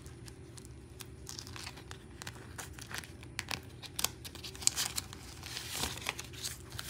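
Clear plastic binder pouch crinkling and paper banknotes rustling as cash is handled, in many short, sharp rustles that get busier about halfway through.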